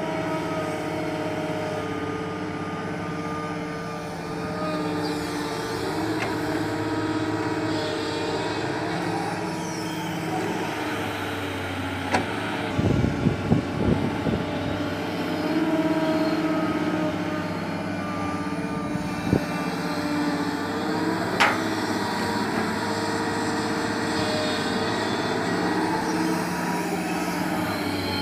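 Doosan crawler excavator's diesel engine running steadily under load, its pitch shifting as the hydraulics work the boom and bucket through sand. A quick cluster of knocks comes about halfway through, and two sharp clicks follow later.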